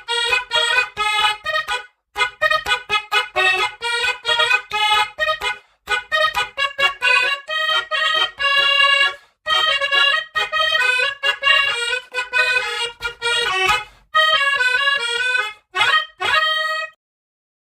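Basuri musical bus horn playing a reedy, chord-like melody in several phrases with short breaks between them, stopping abruptly near the end.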